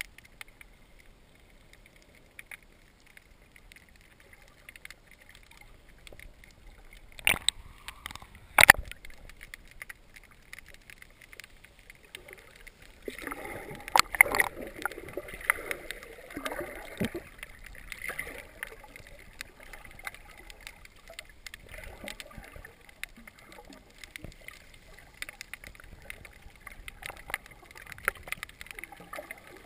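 Water sloshing and gurgling, muffled as heard by a camera held underwater. Two sharp knocks come about a quarter of the way in, and a louder few seconds of churning and bubbling follows just before the middle.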